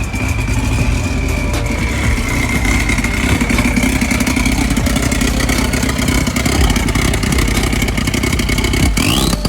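Dodge Neon SRT-4's turbocharged 2.4-litre four-cylinder running under throttle, with a steady high whine that climbs near the end. The engine won't rev past about 1500–2000 rpm, which the owner takes for a misfire.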